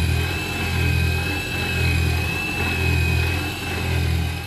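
CNC1310 desktop router milling a steel plate: the spindle gives a steady high whine while the end mill cuts, over a low machine hum that swells and dips in a regular cycle about once a second.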